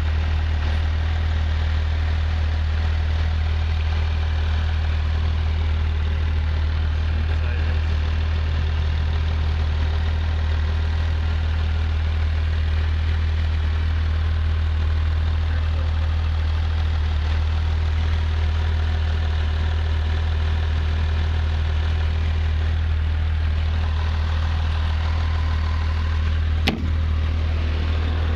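Porsche 911 GT3's 3.8-litre flat-six idling steadily with the engine lid open, a constant low drone. A single sharp knock comes near the end.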